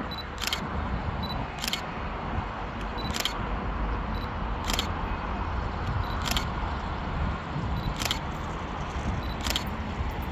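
Sharp high clicks at a fairly even pace, about one every one and a half seconds, over a steady low rumble.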